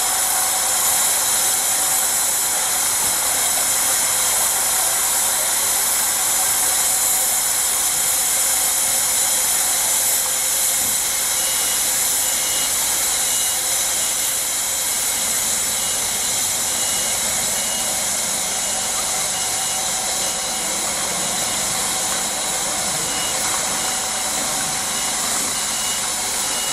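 Steady hiss of steam escaping from a standing Shay geared steam locomotive, No. 5, leaking around its cylinders and running gear.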